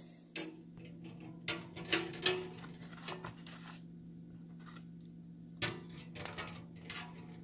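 Eggs being set down one by one in an air fryer basket: several light taps and clicks of eggshell on the basket tray, the firmest about two seconds and five and a half seconds in, over a faint steady hum.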